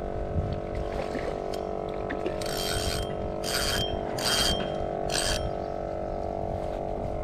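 Steady hum of an electric trolling motor (Minn Kota Endura Max), with four short bursts of ratcheting, mechanical clicking between about two and five seconds in.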